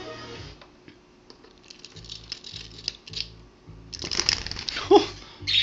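Background music with a steady beat, with rattling and rustling about four seconds in.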